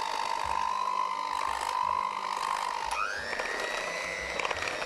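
Electric hand mixer running in a stainless steel bowl, beating cake batter, with a steady motor whine. About three seconds in it is switched to a higher speed and the whine jumps up in pitch.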